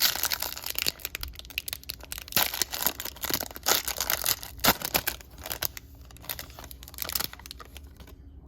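A trading card pack's wrapper being torn open and crinkled by hand, a dense crackling rustle that dies down near the end.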